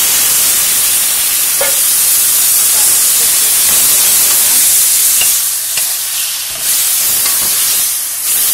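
Raw squid pieces, just added to hot oil and onions in a wok, sizzling loudly in a dense, steady hiss. A few light knocks and scrapes come from a wooden spatula stirring them.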